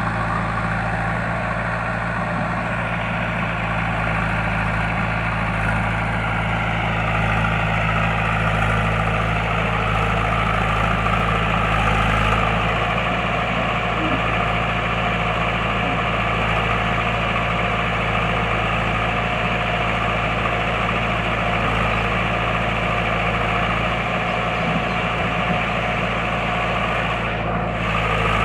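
Diesel engine of a JCB 3DX backhoe loader running steadily, with a faint whine sliding down in pitch about seven seconds in.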